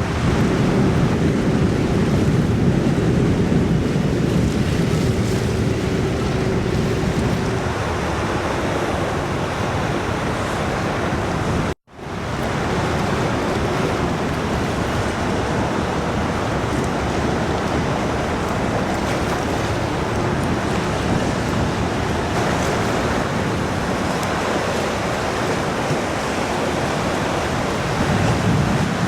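Steady outdoor rushing noise, with wind on the microphone, and a faint steady hum during the first several seconds. It cuts to silence for an instant about twelve seconds in, then carries on.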